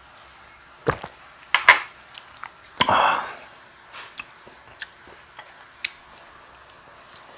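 Eating at the table: sharp clicks and knocks of a glass and metal chopsticks against the table and plates, with chewing. A louder, noisier burst about three seconds in is the loudest sound, and smaller scattered clicks follow.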